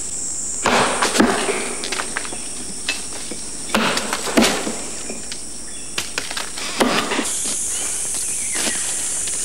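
Insects in tropical forest making a steady high-pitched drone that grows louder after about seven seconds, with a few short crackles and rustles.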